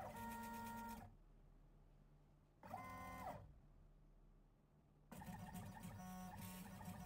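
Stepper motors of an XY pen plotter whining as the carriage moves: two short moves, about a second and half a second long, each with pitch steps up at the start and down at the end, then steadier running with shifting tones from about five seconds in.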